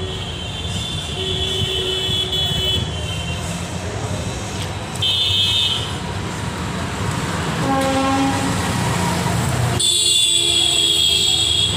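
Busy road traffic with vehicle horns honking again and again over a steady rumble. Several separate horns are held for a second or more, and the loudest, a long high horn, comes near the end.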